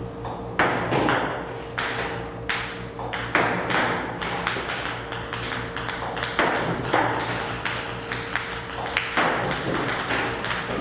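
A series of sharp, ringing pings or knocks, more than a dozen at an uneven pace of roughly one or two a second, over a faint steady tone and low hum.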